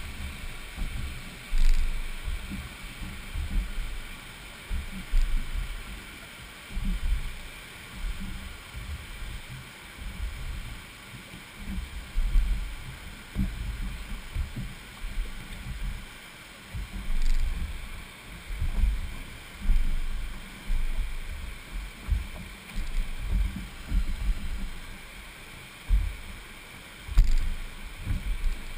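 Wind buffeting a jet ski's camera microphone in irregular low gusts and choppy water slapping the hull, over a steady rush of turbulent river water.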